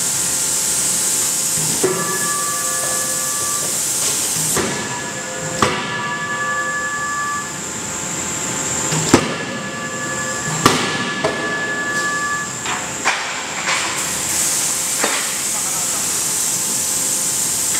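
Forging-shop machinery running: a steady hiss, a high whine that comes and goes in three stretches of a few seconds, and scattered sharp metallic clanks, the loudest about nine seconds in.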